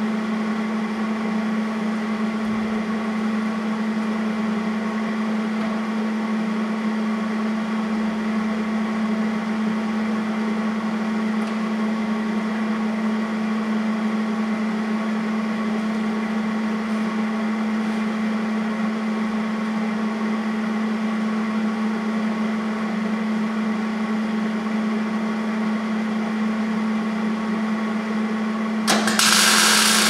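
A steady machine hum with a steady whine above it. About a second before the end, a Hobart wire-feed welder strikes its arc and crackles loudly, spot-welding a steel subframe connector under the car.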